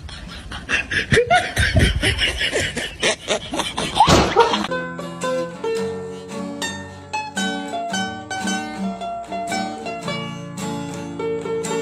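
Noisy, clattering clip audio for the first few seconds with a couple of short rising squeals, then a lively plucked-string instrumental tune that starts abruptly just before halfway and plays on with a steady beat.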